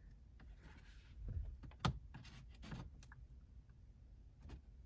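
Faint clicks and scrapes of a plastic pry tool working along the edge of a dashboard trim panel, with one sharper click about two seconds in.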